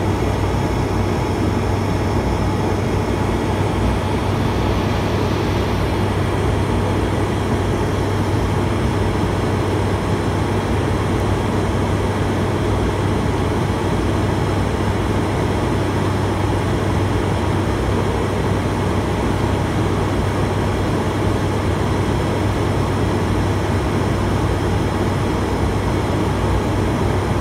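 Steady cockpit noise of an ATR 72-600 turboprop airliner on final approach: the even drone of its two turboprop engines and propellers, with a low hum under a wash of airflow hiss.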